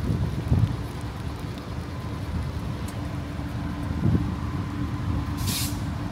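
Diesel locomotive idling with a low rumble and a steady hum, and a short hiss of released air about five and a half seconds in.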